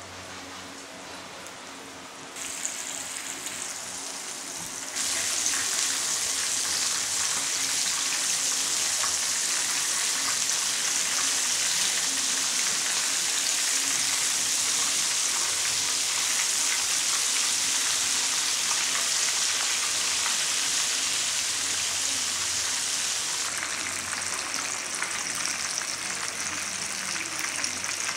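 Flour-coated chicken pieces frying in hot oil in a shallow pan, sizzling steadily. The sizzle gets louder in two steps within the first five seconds and eases a little near the end.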